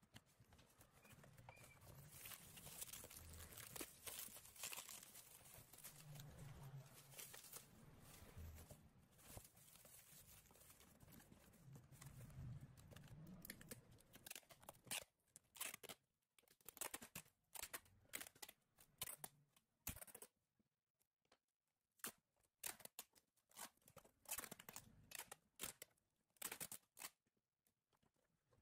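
Faint handling noises at a repair bench: rustling and scraping, then scattered sharp clicks and taps of small tools and phone parts, with quiet gaps between them in the second half.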